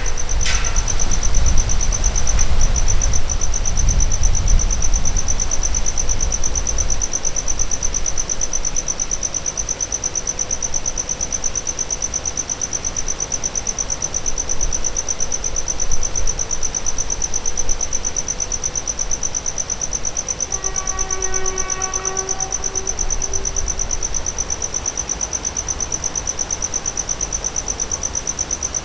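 Loaded electric coal train's wagons rolling away on the track, a low rumble that fades over the first several seconds. Insects (crickets or cicadas) keep up a steady, fast-pulsing high buzz throughout, and a single pitched tone sounds for about three seconds past the two-thirds mark.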